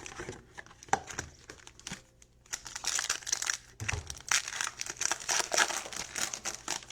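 A trading card pack's plastic wrapper being torn open and crinkled by hand, in sparse crackles at first, then a dense stretch of crinkling from about two and a half seconds in.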